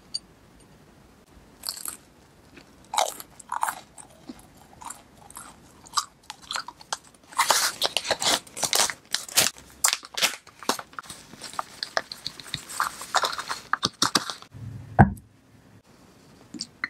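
Crisp crunching and crackling: a few short crunches in the first few seconds, then a long dense run of crackling while powdered sugar goes into a glass measuring cup, ending in a low soft thud about 15 seconds in.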